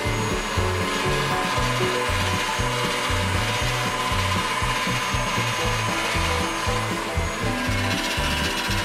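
Marcato Atlas Motor electric pasta machine running, its motor turning the steel rollers as a sheet of dough is fed through. Background music plays under it, with a shifting bass line.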